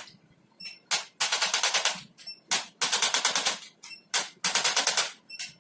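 Electric percussion tool rattling out rapid taps in short bursts, some brief and some about half a second long, started and stopped again and again, as it is applied to the patient's back.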